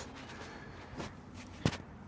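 Two knocks, a faint one about a second in and a sharper one near the end, from tools and small metal parts being handled.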